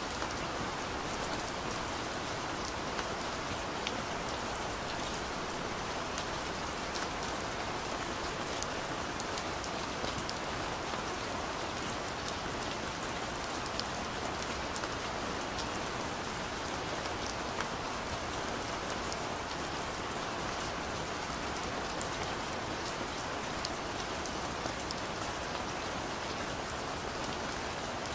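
Steady rain falling: an even hiss with many scattered sharp drop taps.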